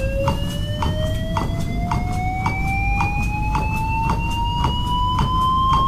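Defibrillator charging tone: a steady whine with overtones that climbs in pitch throughout as the device charges for a possible shock. Under it, short even clicks come about twice a second.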